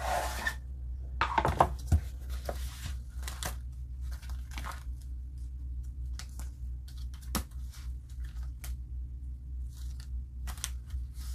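A cash-envelope binder being handled, with a few sharp knocks about one and a half to two seconds in as it is put down, then the crinkle and rustle of its clear plastic envelope pockets as it is opened and leafed through.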